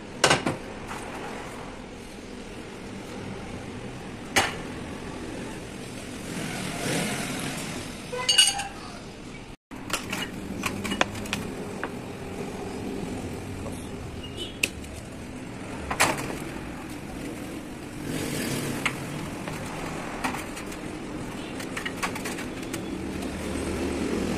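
Steel motorcycle front-fork tubes and parts clinking and knocking against a metal drip tray as they are handled and washed, with sharp clanks every few seconds.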